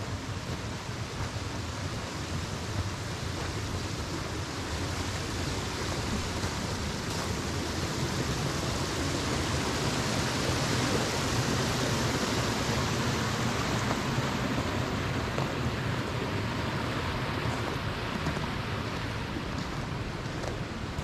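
Steady rushing of flowing river water, swelling for several seconds midway and easing toward the end.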